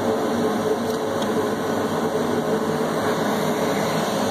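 Steady whir of lab ventilation and equipment cooling fans, with a constant mid-pitched hum over an even rushing noise.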